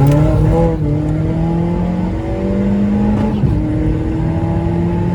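Seat Leon's 1.8-litre 20-valve turbocharged four-cylinder engine accelerating under load, its pitch climbing steadily. About three and a half seconds in the pitch drops, as at a gear change, then climbs again.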